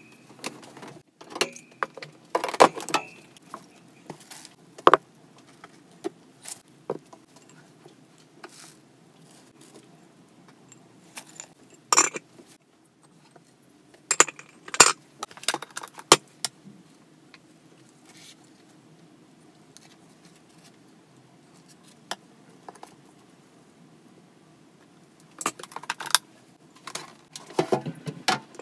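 Hard plastic and metal hamster-cage parts and accessories clinking and rattling as they are handled during cage cleaning, in scattered clusters with long pauses between.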